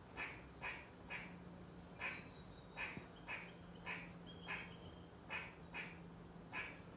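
Eastern gray squirrel giving a run of short, hoarse barking calls, about two a second. These are typical of the species' alarm call.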